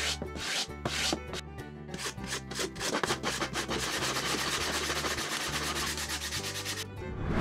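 Sanding block rubbed back and forth over the planked wooden hull of a model boat: rough sanding. The strokes are separate at first, then quicker and closer together from about three seconds in, stopping shortly before the end.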